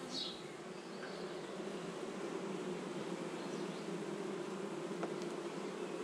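A honeybee colony buzzing, with a steady hum from the mass of bees on a brood comb lifted out of the open hive. A brief high chirp sounds right at the start.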